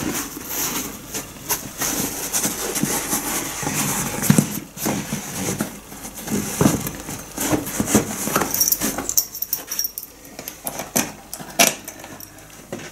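Handling noise as a handlebar bag is pushed onto its handlebar bracket and adjusted: irregular rustling with many scattered clicks and knocks.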